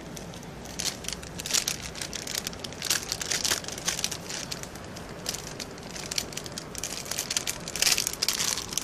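Clear plastic sheeting, a cut-open packaging bag, crinkling and rustling in irregular bursts as it is handled and taped to a window railing, loudest near the end.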